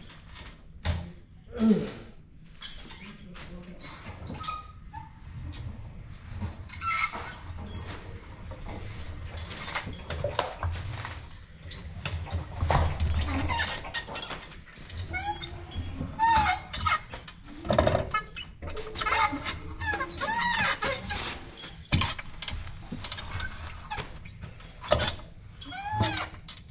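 Irregular squeaks and squeals with scattered knocks and clunks as a pump-up water heater lift is worked and a 50-gallon water heater tank is shifted on it.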